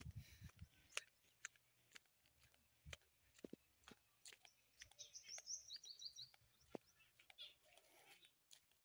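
Near silence with scattered faint clicks, and a quick series of high bird chirps about five to six seconds in.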